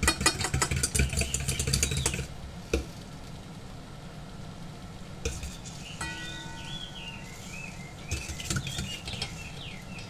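A metal utensil beating egg yolk in a stainless steel bowl for homemade mayonnaise, with quick clicking strokes against the metal for about the first two seconds, then slower, quieter stirring with a few taps.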